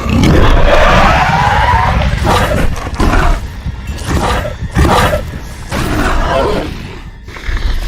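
Movie dinosaur roar and screech sound effects: a long gliding roar, then a string of shorter cries, over background music.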